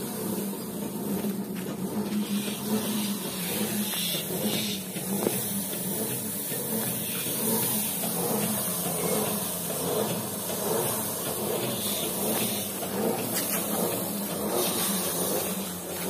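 Mini rice thresher's engine running steadily: a constant low hum under an even hiss.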